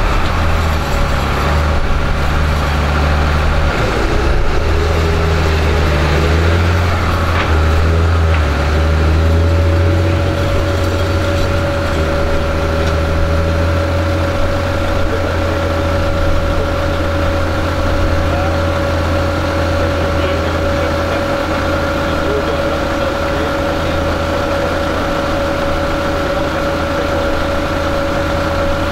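New Holland 8970A tractor's six-cylinder diesel engine running steadily under load, pulling a slurry tanker and soil injector. A steady whine comes in about halfway through.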